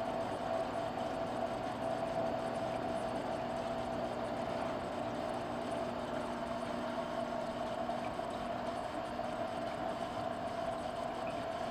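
Aquarium filter running: a steady hum with a fixed mid-pitched tone over a faint water hiss.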